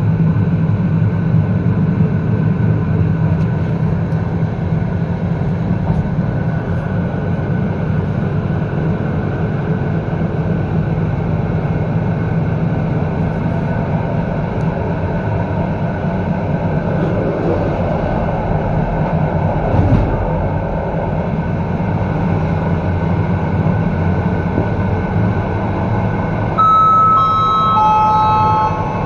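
Steady running noise of a PKP Intercity passenger train at speed, heard from on board. Near the end, the onboard passenger-information chime plays three notes stepping down in pitch, the signal that a station announcement follows.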